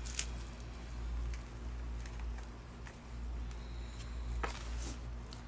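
Hands sifting through dry potting soil and handling potatoes: scattered rustles and light clicks, the sharpest about a second in and again near the end, over a steady low rumble.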